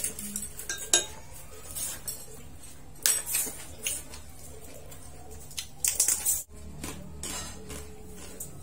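Chopsticks and utensils clicking against ceramic bowls and plates as people eat, in scattered taps with a quick cluster of clicks past the middle, over a steady low hum.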